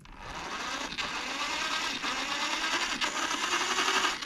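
Homemade RC car's small electric motor and gear drivetrain whirring as it spins the wheels, run in reverse from the transmitter. It starts at the beginning and builds over the first second, then runs steadily.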